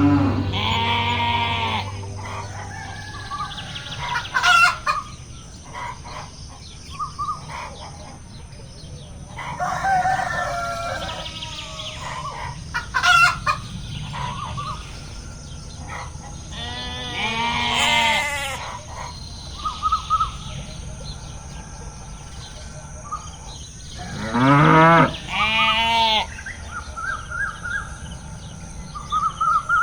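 Farmyard animal sound effects: a rooster crowing several times and hens clucking, with short chirps between the calls.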